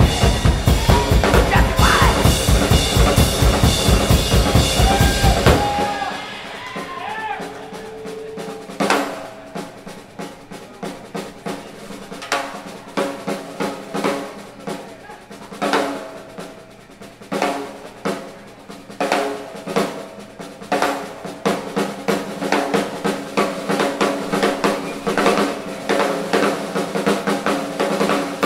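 Live band with drum kit playing loudly and densely; about six seconds in the bass end drops out and the drum kit carries on alone in a solo of spaced snare, tom and cymbal hits over faint held tones, the hits getting busier toward the end.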